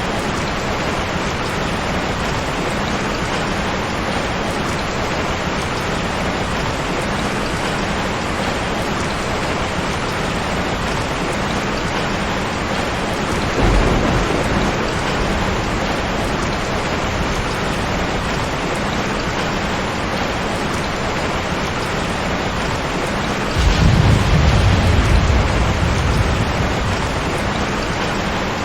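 Steady rain falling, with a short low rumble of thunder about halfway through and a longer, louder roll of thunder a few seconds before the end.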